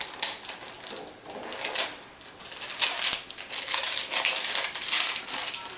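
Gift wrapping paper being torn and crinkled off a small box, in a run of irregular rips and rustles.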